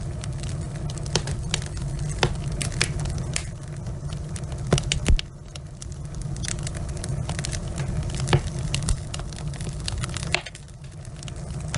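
Wood fire crackling: logs burning in a fireplace with frequent sharp pops and snaps over a low steady rumble of the flames. The rumble drops briefly twice, near the middle and near the end.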